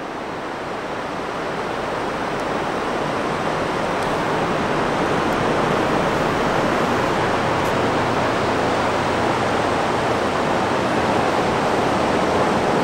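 Steady wash of ocean surf, fading in over the first few seconds and then holding even.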